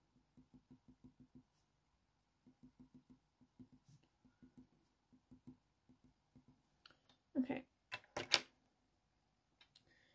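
Coloured pencil making quick, short strokes on hot-press watercolour paper: faint ticks in runs of about five or six a second while whisker points are flicked in. Near the end come a few louder, sharper clicks and knocks.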